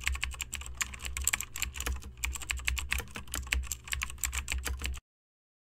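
Computer keyboard typing sound effect: rapid, uneven key clicks for about five seconds that cut off suddenly near the end.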